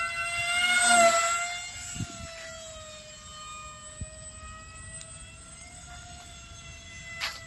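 Small model airplane's motor and propeller whining at a steady pitch, loudest about a second in as it passes close, the pitch bending slightly as it goes by.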